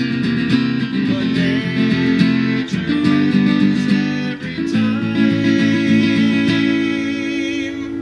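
Acoustic guitar strummed along with a man singing. A chord struck a little under five seconds in is left ringing and slowly fades, closing the song.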